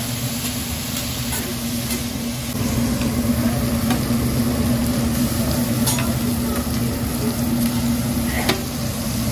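Food sizzling on a hot steel hibachi griddle, with a few clinks of metal spatulas against the plate over a steady low hum. The sizzling gets louder about two and a half seconds in.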